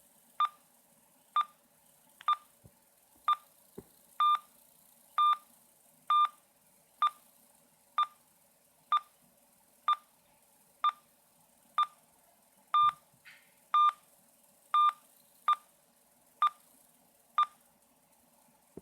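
Morse code SOS played as beeps by a phone app, repeating: three short beeps, three longer beeps, three short beeps, all on one steady pitch and spaced about a second apart.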